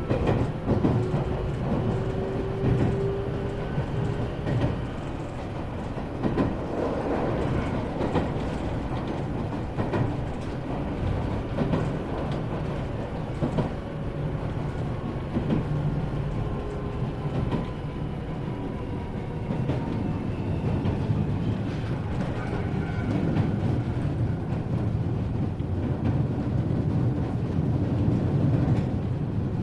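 Iyotetsu 3000 series electric train running, heard from inside motor car MoHa 3103: a steady rolling rumble with wheel clicks over rail joints and faint thin whining tones, growing a little louder in the second half.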